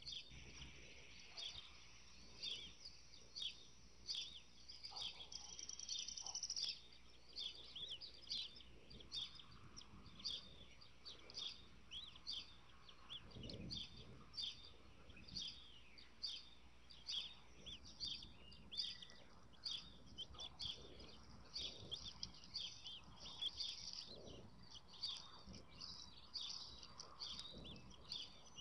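Bald eagle chicks peeping, thin high chirps repeating about twice a second, as they are fed in the nest. A soft low bump about fourteen seconds in.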